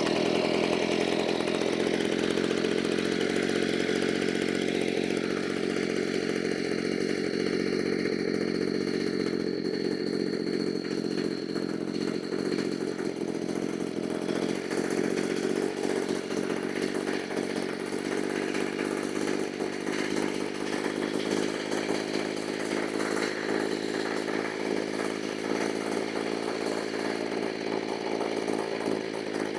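Stihl BG85 leaf blower's small two-stroke engine running steadily and without stumbling while its carburetor is being tuned.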